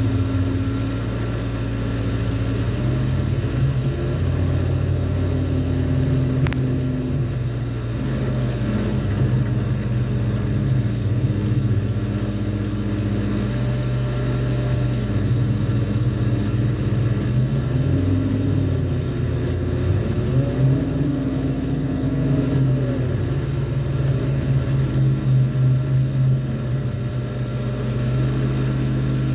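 An engine running steadily, its pitch rising and falling as the load changes, with one sharp click about six seconds in.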